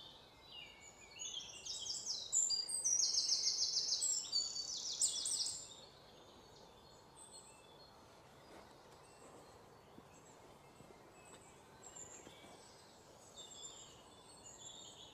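Small birds singing: quick, high-pitched chirping and trilled phrases, loudest over the first five seconds or so, then fading to a quieter outdoor background with a few faint chirps.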